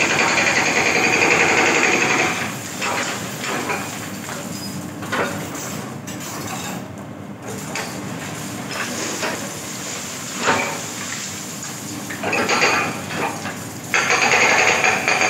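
Komatsu hydraulic excavator demolishing a concrete building: the machine is working hard against the wall, with crunching concrete and clattering rubble. It is loudest for the first two seconds and again near the end, and quieter in between, with scattered knocks of breaking concrete.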